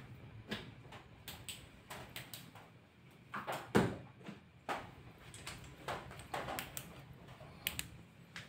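Irregular small clicks and knocks of things being handled and set down, about a dozen, with one louder knock near the middle, over a faint low hum.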